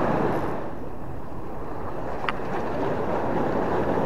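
Steady rushing of wind and sea at the water's edge, with one short sharp tick a little past two seconds in.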